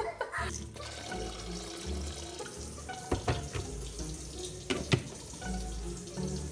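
Tap water running, as when an electric kettle is filled, with a few sharp knocks and clicks about halfway through and again near the end as the kettle is handled and switched on. Background music plays underneath.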